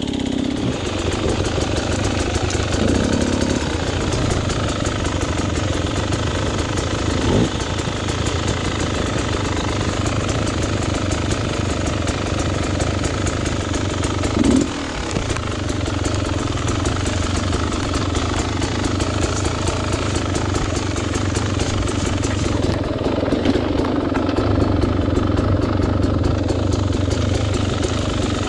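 Off-road dirt bike engine running steadily at low revs, with a few brief surges of throttle.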